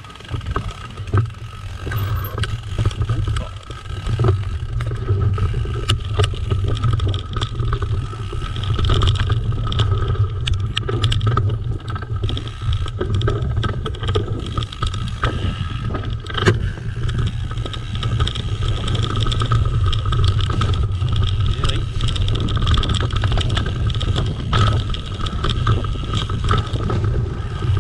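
Mountain bike ridden fast over a woodland dirt trail: wind buffeting the microphone, tyre noise and the bike rattling over bumps, with a sharper knock about sixteen seconds in.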